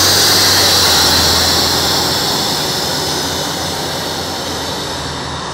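Orion VII 3G transit bus engine pulling away under load: very loud and struggling, a strong high hiss over a low drone that fades slowly as the bus moves off. The uploader thinks the sound could be a turbo problem.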